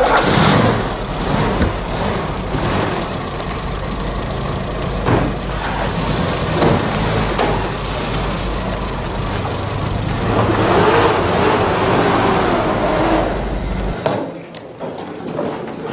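Motor vehicle engine running with a steady low rumble that cuts off about fourteen seconds in, amid street noise.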